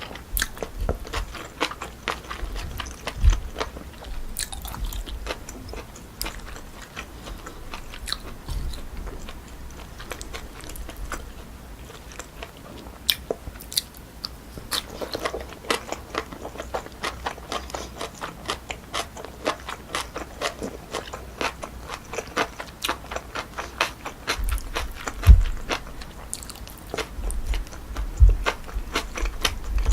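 Close-miked chewing and crunching of naengchae jokbal, cold pork trotters with jellyfish salad, in dense small clicks. A few low knocks stand out, the loudest about 25 seconds in.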